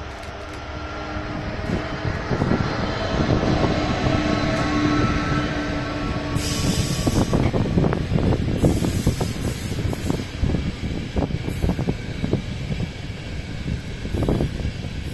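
Electric locomotive hauling a passenger train close by: a steady electric tone rides over the rumble for about the first six seconds as the locomotive passes. After that, the coaches roll past with continuous rattling and knocking of their wheels on the rails.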